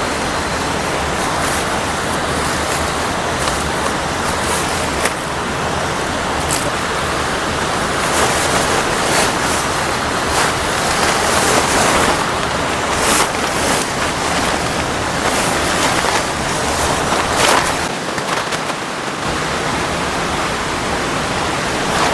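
Steady loud rush of a waterfall and river, with a few short knocks or rustles breaking through now and then.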